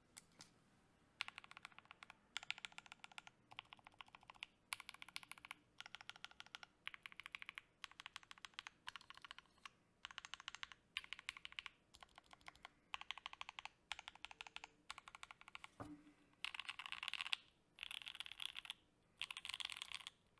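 Keys on a custom KBDFans D60 HHKB mechanical keyboard (C3 Equalz Tangerine linear switches, FR4 plate, GMK Laser keycaps) are pressed in quick runs of rapid clicking. Each run lasts under a second, with short gaps between, and the last few runs are louder.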